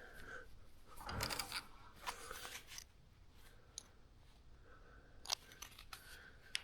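Faint handling of broken aluminum test pieces: a few light clicks and rustles, with a sharper click a little past five seconds in.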